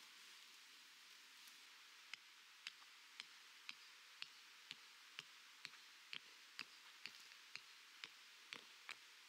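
A run of short, sharp clicks or taps, about two a second, starting about two seconds in, over a faint steady hiss.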